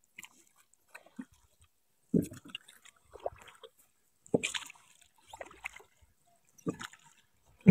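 Wooden oars of a rowboat dipping and pulling through river water, a soft splashing stroke about every two seconds.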